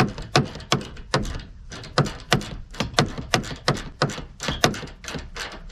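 Ratchet wrench clicking in a steady rhythm, about three sharp clicks a second, as a fender mounting bolt on a 1994 Ford Ranger is run in and left loose.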